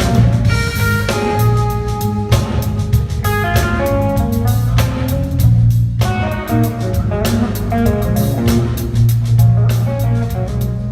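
A band plays a blues-jazz tune: a guitar plays a melodic lead line over drum kit and bass.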